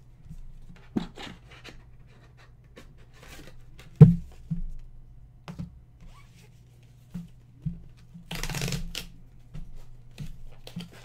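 Stiff cardboard photo mailers handled on a table: scattered taps, slides and rustles, with a sharp knock about four seconds in and a longer scraping slide of about half a second near the end, over a steady low hum.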